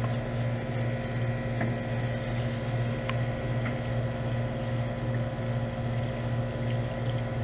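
Central air conditioner's outdoor condenser unit running: a steady low electrical hum from the compressor and fan, with a few faint ticks.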